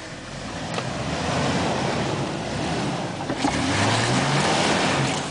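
Jeep Wrangler Rubicon's 4.0-litre straight-six working under load on a rocky climb, with a loud rushing noise of tyres and dirt over it. The engine revs up about three and a half seconds in, and the noise drops off suddenly at the end.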